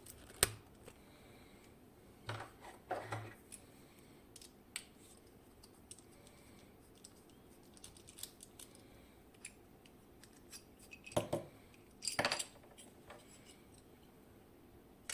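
Small clicks and light metallic clinks of a lock cylinder and tools being handled, scattered and irregular, with a sharp click under a second in and busier bursts of handling about three, eleven and twelve seconds in.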